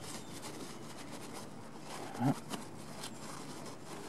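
Paper towel rustling and rubbing as a handlebar lever's metal pivot bolt is wiped clean of old grease. About two seconds in, a short rising tone stands out briefly.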